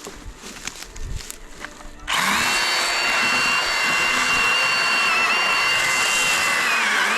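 Milwaukee M18 FUEL cordless brushless mini chainsaw, after a few light clicks, switched on about two seconds in and running at steady speed with a high motor-and-chain whine. The pitch dips slightly near the end.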